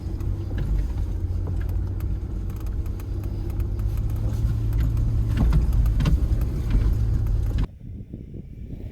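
Jeep driving at low speed: a steady low engine and road rumble with scattered knocks and rattles. It cuts off abruptly near the end, leaving wind noise.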